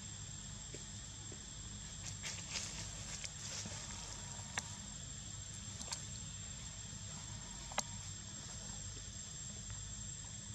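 Steady high-pitched insect drone, typical of crickets or cicadas, over a low hum, with a few scattered short clicks and rustles.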